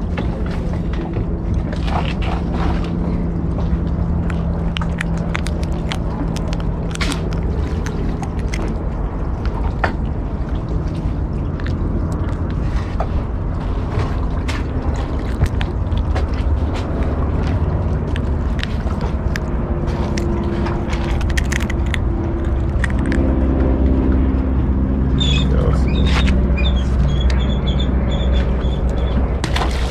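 Steady low rumble with many short knocks and scrapes from a sheepshead and fishing line being handled close by, as a hook is worked free.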